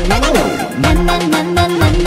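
Upbeat background music with a steady drum beat and a bass line that slides up and down in pitch.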